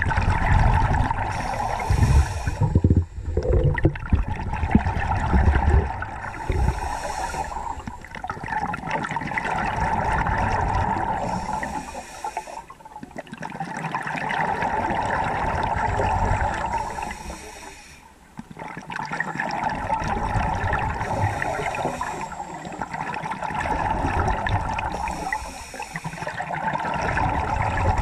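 Scuba diver breathing through a regulator underwater: a short hiss of inhaling about every four to five seconds, each followed by a long bubbling rush of exhaled air.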